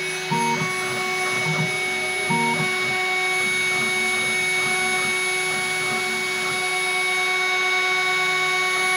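Home-made CNC mill milling a copper-clad PCB: the spindle motor runs with a steady whine while the axis stepper motors hum in short tones that change pitch as the table moves, over the scratchy noise of the engraving bit cutting.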